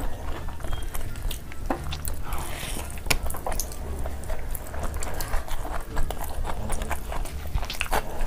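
Close-miked mukbang eating: chewing and lip-smacking as meat and rice are eaten by hand, with many irregular wet clicks and smacks.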